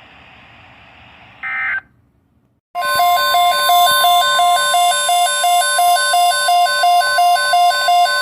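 Weather radio audio: a short burst of data tones, a brief pause, then the steady 1050 Hz NOAA Weather Alert Tone, loud, with a rapid pulsing electronic beep about three times a second over it, the alarm that comes before a new warning broadcast.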